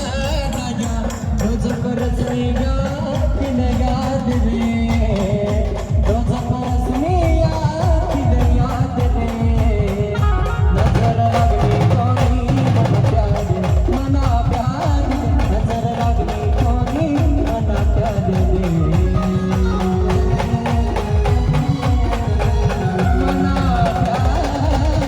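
Band playing an instrumental passage of a Marathi folk-style song: a steady, driving drum beat under a melody from the band's instruments, with no singing.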